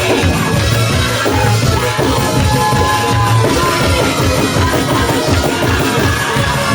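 Live gospel praise-break music: a drum kit drives a fast, steady beat under held keyboard notes.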